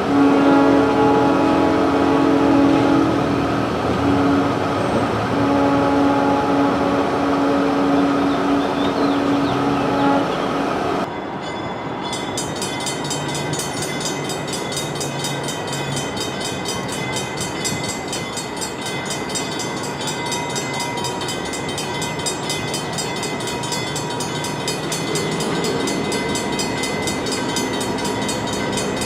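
A locomotive horn sounding in long blasts with a few short breaks for about ten seconds. Then, after an abrupt change, a train's steady running noise.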